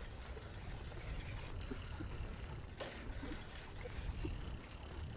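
Outdoor background noise while walking along a paved park footpath: a steady low rumble with a few faint, scattered ticks.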